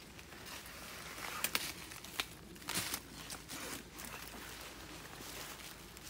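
Footsteps rustling through dry leaf litter, with a few sharp crackles between about one and three seconds in.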